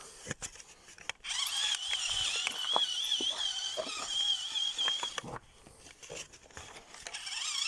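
Radio-controlled toy car's small electric drive motor and gears whining as it drives, a high, slightly wavering whine lasting about four seconds. It stops, and the whine starts up again near the end.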